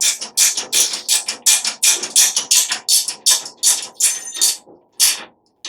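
Ratchet wrench being cranked in quick back-and-forth strokes, a rhythmic metallic clicking at about four strokes a second that stops near the end.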